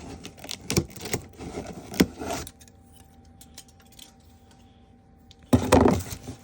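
Cardboard box and packaging being handled and opened: a run of clicks and rattles, a quieter pause, then a loud noisy scrape or tear about five and a half seconds in.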